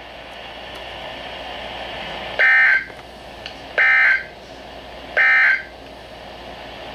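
NOAA Weather Radio EAS end-of-message signal: three short, identical bursts of warbling SAME data tones about 1.4 s apart, heard over steady radio hiss. The bursts mark the close of the emergency alert broadcast.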